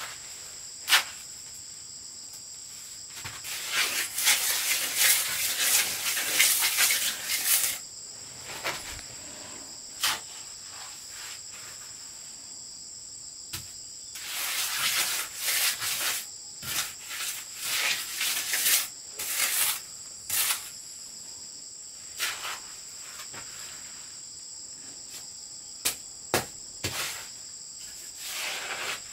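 A steady high-pitched insect chorus, with two long stretches of rough scraping and several sharp knocks from hand work with building materials.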